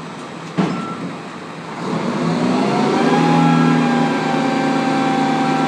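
Roll-off truck's diesel engine running, a single sharp metal clank about half a second in, then the engine revs up over about a second and holds at a steady higher speed.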